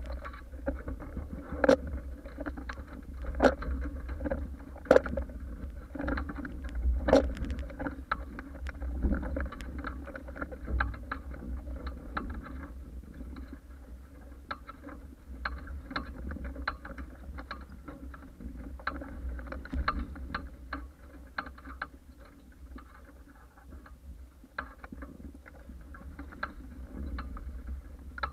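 Paper Tiger catamaran hull driving through chop at speed: water rushing and slapping against the hull, with frequent irregular sharp knocks of waves and spray, loudest in the first several seconds. Under it runs a steady low rumble of wind on the microphone.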